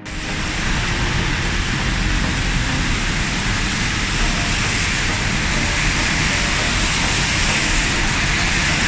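Heavy rain falling steadily, a dense hiss with a low rumble beneath it.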